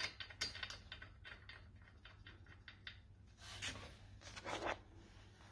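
Faint clicks and taps of a metal bracket and bolt being fitted by hand onto a sofa bed's steel frame, with two short rubbing scrapes about three and a half and four and a half seconds in.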